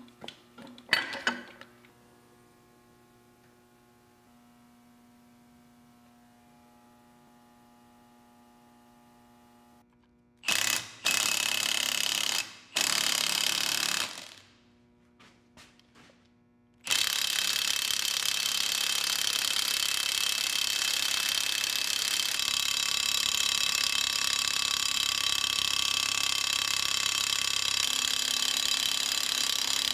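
Milwaukee cordless impact wrench hammering on the screw of a puller to force a tight part out of a lathe tailstock: two short bursts about ten seconds in, then one long unbroken run from about seventeen seconds on.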